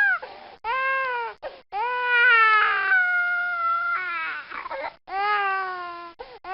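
Baby crying: a string of pitched wails, mostly about a second each with one longer drawn-out wail near the start, each dropping in pitch as it ends.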